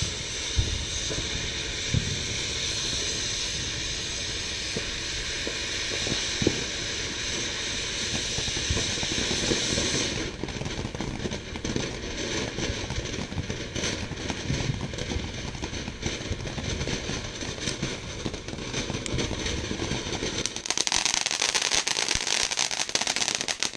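Night Justice consumer firework burning: a steady hiss for about ten seconds, then cracking that turns into a dense, rapid crackle near the end.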